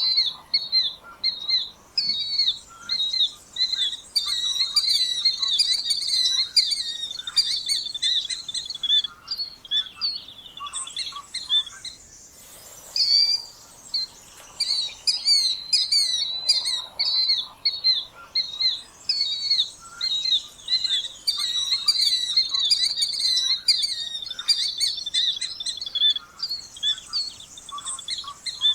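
Killdeer calling over and over, rapid shrill notes a few per second, with a short pause partway through.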